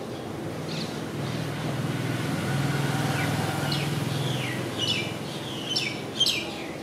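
Small birds chirping in short, high, falling calls, several in the second half, over a low engine hum of passing traffic that swells and fades in the middle.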